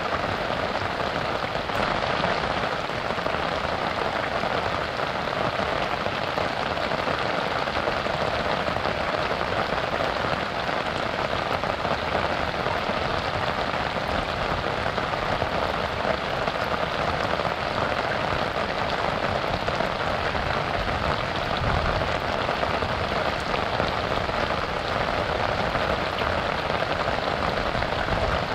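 Steady rain falling on a river's surface: an even, unbroken hiss.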